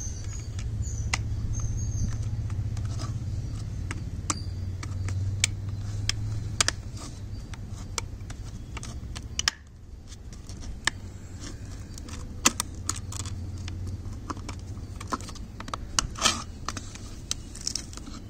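Scattered small plastic clicks and taps as the handle and spray-button parts of a Preethi steam iron are fitted together by hand, over a steady low hum that drops away about halfway through.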